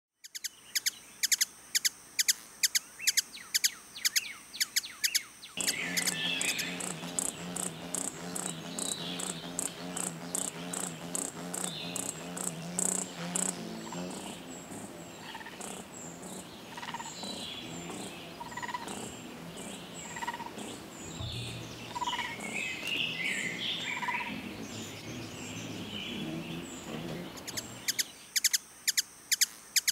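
Ruby-throated hummingbird chip calls: rapid, sharp, high ticks about four a second. About five seconds in they give way to a denser mix of scattered chirps over a low steady hum, and the ticking returns near the end.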